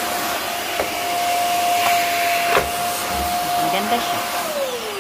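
Silvercrest 2-in-1 bagless 600-watt vacuum cleaner running, a steady high whine over rushing air with a couple of light knocks. Near the end it is switched off and the whine falls away as the motor spins down.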